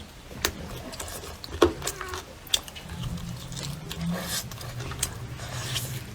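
Close-up eating sounds of someone chewing braised duck and goose by hand, with sharp mouth smacks and clicks. A low steady hum joins from about three seconds in.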